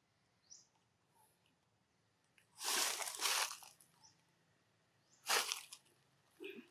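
Dry leaf litter crunching and rustling in three bursts: a long one about two and a half seconds in, a shorter one about five seconds in, and another starting near the end. A bird gives one short high chirp about half a second in.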